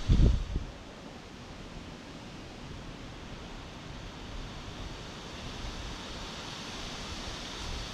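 Wind blowing, a steady rushing hiss. In the first half-second a gust buffets the microphone with a loud low rumble.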